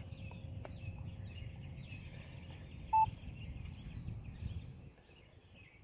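A single short electronic beep from a Minelab Equinox metal detector's control pod about three seconds in, while its button is held down for a factory reset. Birds chirp faintly throughout over a low rumble that fades about five seconds in.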